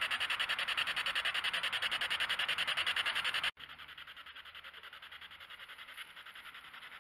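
Spirit box (SB7) sweeping through radio stations: choppy static in rapid, even pulses. It drops off abruptly about three and a half seconds in, and fainter pulsing continues after.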